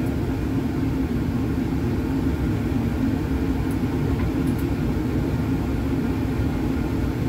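Steady low rumble of laboratory fume hood ventilation, with two faint light clicks about four seconds in.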